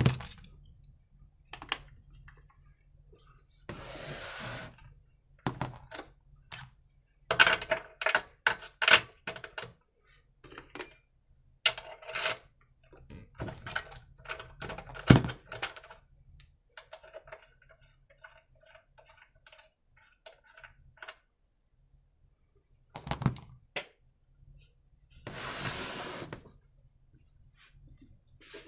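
Metal hand tools and sockets clinking and rattling as they are picked from a tool tray and handled on a workbench, with scattered knocks. Two longer scraping noises, a short one about four seconds in and a longer one near the end, fit the generator being turned around on the bench.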